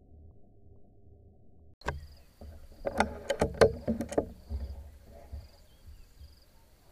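A muffled low rumble for under two seconds, then a quick run of sharp clicks and knocks from the air rifle and its mount being handled. Insects trill in a high, pulsing tone behind it.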